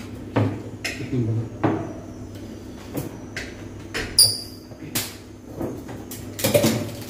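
Scattered clicks and knocks of beer bottles and glasses being handled on a wooden dining table, with one sharper, brighter clink about four seconds in.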